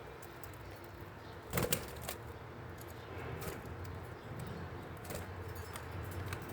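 Small ornamental cage birds moving about their cage: scattered light clicks and scratches, with one brief louder rustle about a second and a half in, over a low steady hum.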